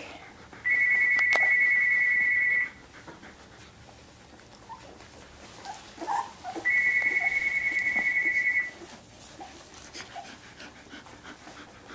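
Young Samoyed puppy whining: two long, steady high whines of about two seconds each, several seconds apart, with small squeaks and fussing from the nursing litter in between.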